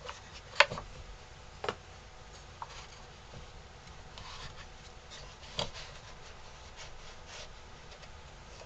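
Carved wooden pieces of a dummy's head and neck being handled and fitted together: a few light knocks of wood on wood, the sharpest about half a second in, with faint rubbing between them.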